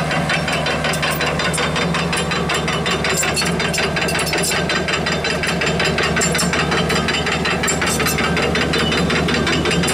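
Kubota U-55 mini excavator's steel crawler tracks clattering in a fast, even rattle of clicks, over the steady hum of its diesel engine.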